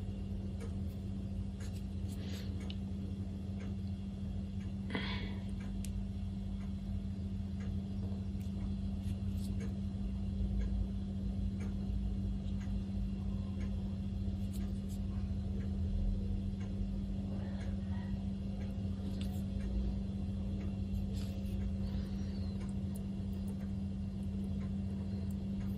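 Steady low machine hum at one constant pitch over a low rumble, with a few faint clicks and taps scattered through.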